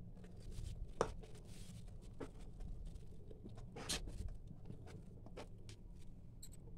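Hand kneading and squeezing mashed boiled potato in a steel bowl: faint, irregular soft squishing with scattered light clicks, the sharpest about a second in and again about four seconds in.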